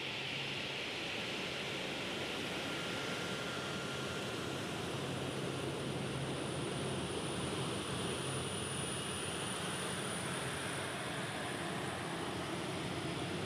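Boeing RC-135W Rivet Joint's CFM56 (F108) turbofan engines running at taxi power as the jet rolls slowly past: a steady jet rush with a thin high whine that grows stronger past the middle and then eases.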